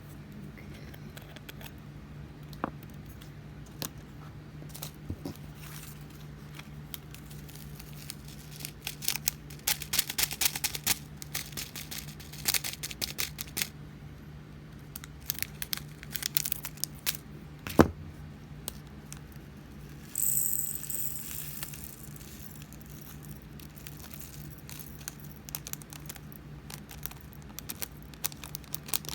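Tiny resin diamond-painting drills pouring and rattling into a plastic tray and jar, in fast clusters of small clicks, with one sharper knock of plastic on plastic and a brief hiss partway through.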